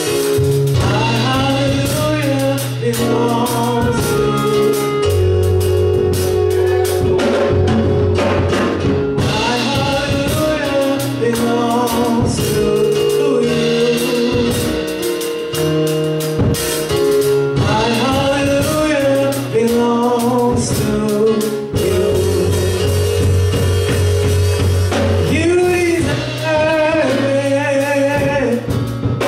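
Gospel praise-and-worship song: voices singing a melody over an accompaniment of sustained bass notes and drums.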